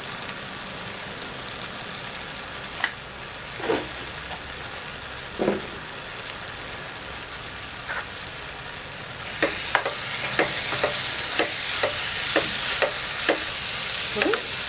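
Okra and dried prawns sizzling in a frying pan, with a few scattered knocks. From about two-thirds of the way in, a spatula stirs through the pan in quick scrapes and taps, and the sizzling grows louder.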